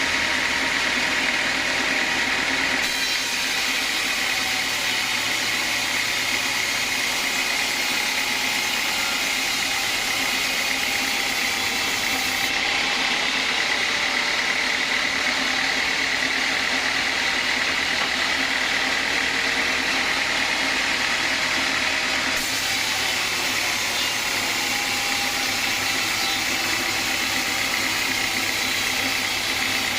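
Sawmill band saw running with steady machine noise and a constant high whine. The sound shifts abruptly about three seconds in, near the middle, and again about eight seconds before the end.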